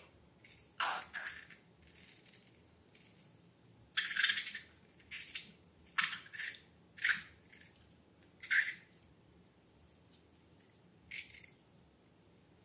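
Slime being squished and worked by hand: a string of short, sticky squelches at irregular intervals, about nine in all.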